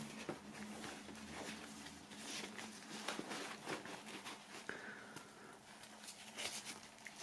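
Faint, irregular rustling and rubbing of a faux-leather boxing glove as it is pulled onto a hand and its hook-and-loop cuff is handled.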